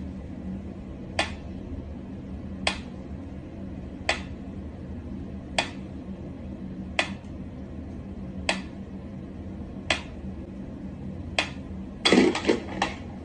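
Mechanical pendulum metronome ticking slowly, one sharp tick about every second and a half. Near the end there is a quick burst of louder knocks and rattling.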